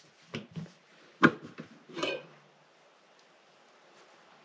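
Kitchen handling sounds: a few short knocks and clinks of utensils against cookware in the first two seconds, the loudest about a second in.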